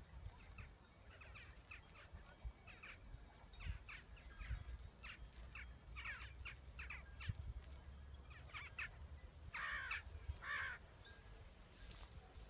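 Birds calling: a run of short, quick chirps, with two louder, harsher calls about ten seconds in, over a low rumble.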